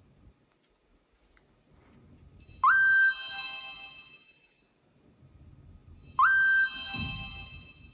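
Nokia N97 mobile phone playing a short ringtone or alert tone through its loudspeaker, twice, about three and a half seconds apart. Each starts with a quick upward slide into a held note and fades away over about a second and a half.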